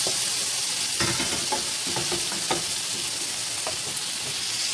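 Chopped garlic, onion and tomato sizzling in oil in a nonstick frying pan, sautéing until wilted. A wooden spatula stirs through them, scraping and tapping the pan about every half second.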